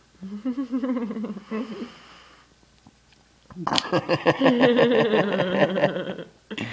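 A baby's wordless vocalizing: babbling at first, then after a short pause a longer, louder, raspy stretch of voice lasting about two and a half seconds.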